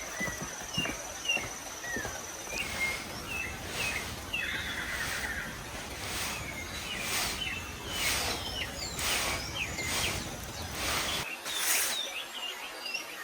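Several birds chirping and calling in short rising and falling notes, with a brief buzzy trill about four seconds in. Short bursts of noise recur about once a second underneath.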